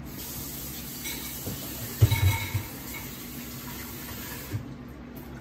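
Beaten eggs frying in hot olive oil in a stainless steel pan: a steady sizzling hiss that stops shortly before the end. A few loud low thumps come about two seconds in.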